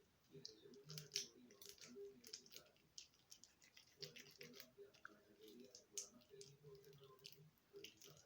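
Hard slime being kneaded by hand with hand cream worked into it: quiet, irregular sticky clicks and crackles.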